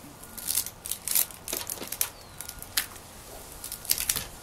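Rubber bands being snapped one after another onto a watermelon as they are stretched around it: a run of sharp snaps at irregular intervals.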